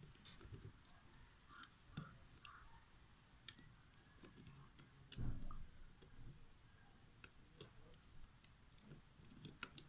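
Faint, scattered clicks and ticks of small plastic parts being handled and fitted on a cassette deck's tape mechanism, with one louder dull thump about five seconds in.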